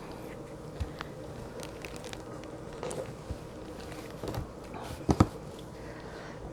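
Scattered small clicks and taps of eating and handling food and utensils close to the microphone, with a sharper double click about five seconds in.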